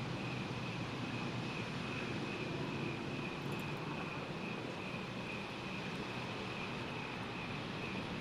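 Steady outdoor night ambience from a storm-watching porch: a continuous low distant rumble with a constant high-pitched drone over it, and no thunderclap.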